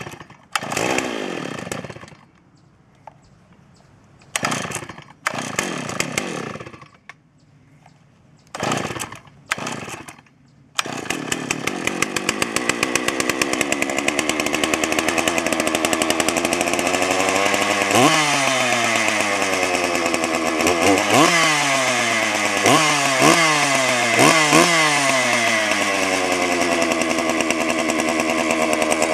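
Stihl 064 AV two-stroke chainsaw power head starting. At first it gives several short bursts that fire and die away; about a third of the way in it catches and settles into a steady idle. Past the middle it is revved in a string of quick throttle blips, each dropping back to idle.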